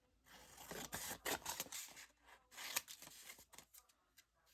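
Paper rustling and sliding as craft papers and pictures are sorted through by hand, in irregular short scrapes and flicks that die down near the end.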